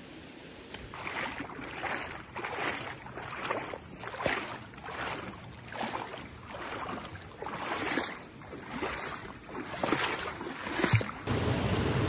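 Water splashing in a regular rhythm, about three splashes every two seconds, varying in strength. Near the end this gives way to the steady rush of a small waterfall.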